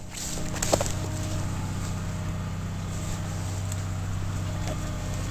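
An engine idling steadily with a low, even hum, with a light knock under a second in.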